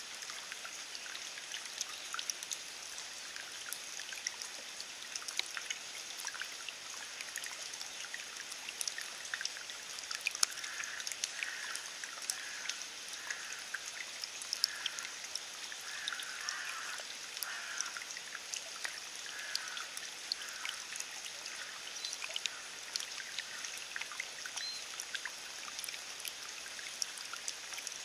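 Steady rain falling on wet grass and puddles: an even hiss with many small drip ticks scattered through it.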